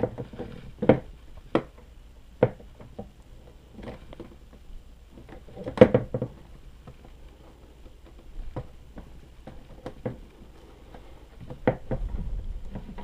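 Irregular light clicks and knocks of hands handling an RC catamaran's fiberglass hull, the loudest about six seconds in.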